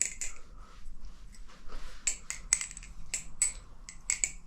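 LDY Corvus 7075-aluminium balisong trainer being flipped: quick, irregular metallic clicks and clacks as the handles swing around and knock together.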